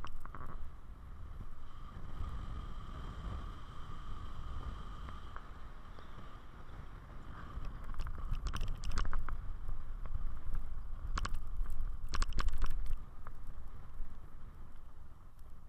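Wind buffeting and road rumble on a vehicle-mounted camera's microphone while driving a dirt track, with a faint steady whine. The rumble grows louder about eight seconds in, with sharp knocks and rattles around eight to nine seconds and again around eleven to thirteen seconds.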